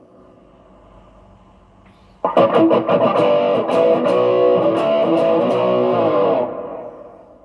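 Electric guitar played through a NUX Plexi Crunch pedal with a crunchy distorted tone. After about two seconds of faint hiss, a riff of picked notes and chords starts suddenly, then rings out and fades near the end.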